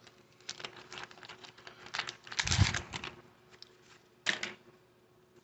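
Cardboard baseball cards being handled and flipped through, a run of small clicks and rustles as the cards slide and snap against each other, busiest and loudest about two and a half seconds in, with one more quick flick past the four-second mark.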